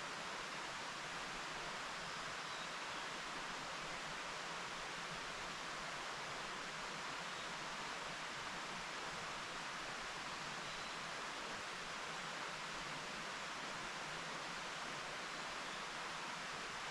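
Mountain stream flowing over rocks: a steady, even rush of water with no change.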